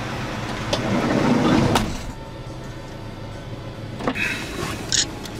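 A van's sliding side door rolling shut and closing with a knock about two seconds in, after which the inside of the van goes quieter, with a few small clicks.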